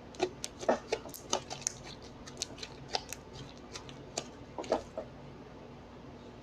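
Slime being kneaded by hand, giving a quick irregular run of small clicks and pops that stops about five seconds in.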